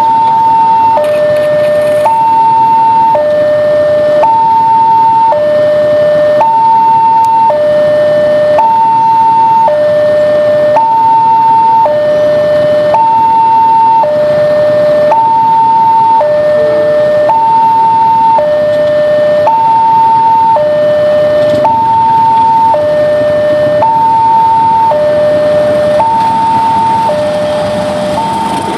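Railway level-crossing warning alarm sounding: two electronic tones, one high and one low, alternating evenly about once a second and repeating steadily.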